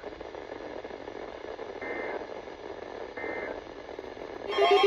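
NOAA Weather Radio hiss with two short raspy data bursts about a second and a half apart, the SAME end-of-message codes that close an EAS warning. Near the end a loud pulsing, warbling electronic alert tone cuts in.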